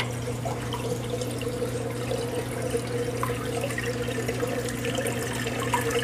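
Steady running water trickling over a low electrical hum, typical of a reef aquarium's circulation pump and flow, with a few faint ticks.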